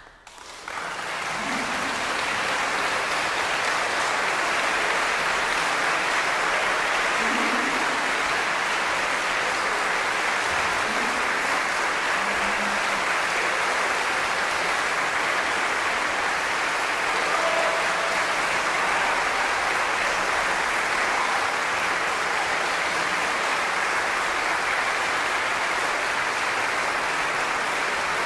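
Audience applauding, starting suddenly out of near silence about half a second in and then holding steady.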